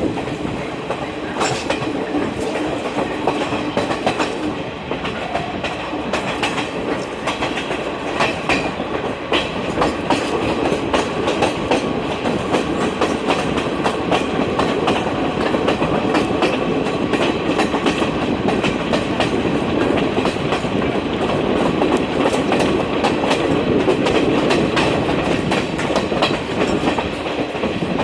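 Passenger train running along the track, its wheels clattering over the rail joints in a continuous clickety-clack.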